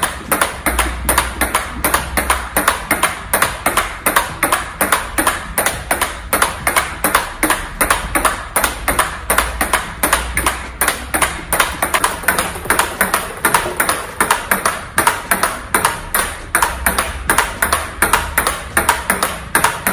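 Fast table tennis backhand rally: the ball clicks in an even, quick rhythm off the bats and the table, several hits a second without a break.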